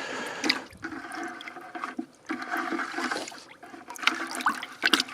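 Water sloshing and splashing as caught fish are handled in a container of water, uneven and coming in surges, with a few sharp knocks near the end.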